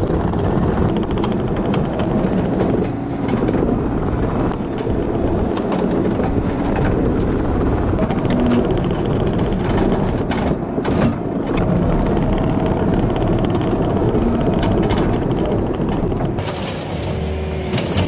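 Case TV450 compact track loader running and travelling with a loaded bucket, heard from the operator's seat: a steady diesel engine and hydraulic drone with scattered clanks. About a second and a half before the end the sound changes to the machine heard from outside with a strong hiss.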